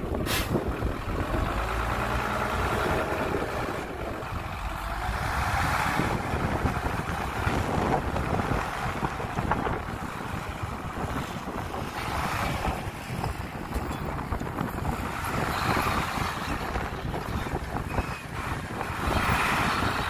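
Diesel engines of heavy earthmoving machinery (dump trucks and a bulldozer) running, the engine noise swelling and easing several times, with a sharp knock just after the start.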